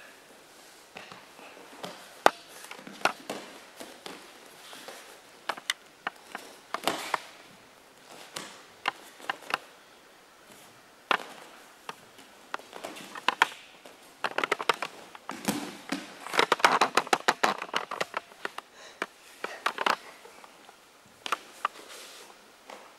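Grappling on tatami mats: scattered slaps and thumps of hands, feet and bodies on the mats with rustling of cloth, building to a dense flurry of impacts past the middle.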